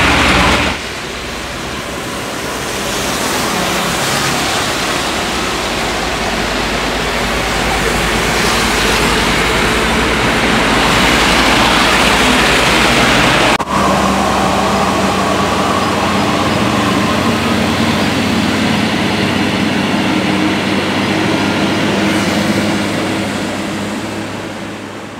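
Heavy trucks passing on a wet highway: diesel engines running under a steady hiss of tyres and road noise. The sound changes abruptly about a second in and again about halfway through, then fades out near the end.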